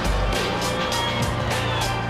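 Background music with a quick steady beat, about four hits a second, over held low bass notes.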